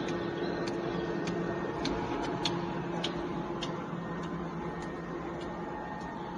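Automatic dumpling-wrapper pressing and cutting machine running: a steady mechanical hum with a regular light click, a little under two a second.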